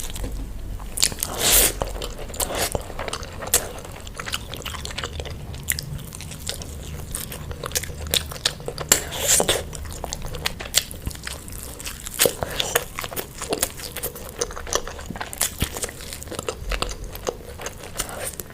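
Close-up mukbang eating sounds of fish: irregular crunchy bites and chewing with many sharp wet clicks.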